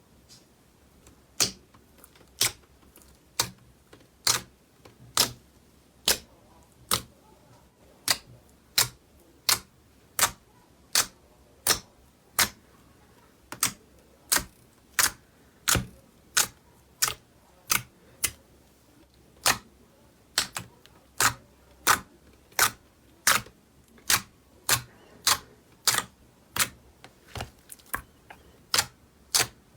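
Slime being worked by hand, giving a run of sharp clicking pops, about one and a half a second at slightly uneven spacing.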